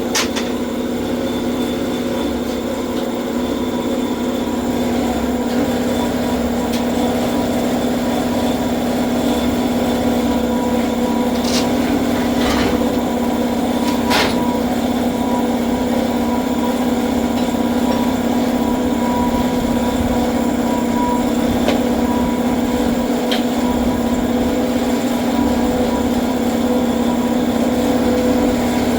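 A vehicle engine running at a steady, unchanging speed, with a few sharp knocks or rattles, one a little before the middle and one later on.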